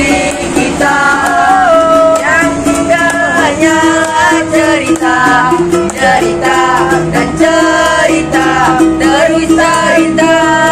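Young men singing a song together, accompanied by a strummed ukulele.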